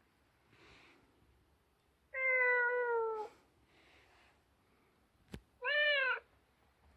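Electronic toy cat meowing twice: a first meow about a second long with falling pitch, then a sharp click and a shorter meow that rises and falls.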